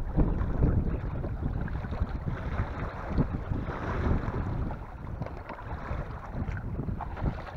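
Wind buffeting the microphone: an uneven, gusty low rumble with no engine or voices standing out.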